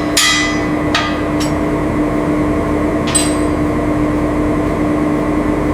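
Small workshop power tool's motor running steadily, with sharp metallic clinks of tools on metal: several in the first second and a half, one more about three seconds in.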